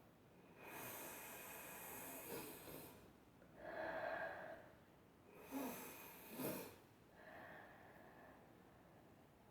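A person blowing and snorting hard through the nose: two long blows, with a shorter breathy sound between them, during an allergic reaction to dust.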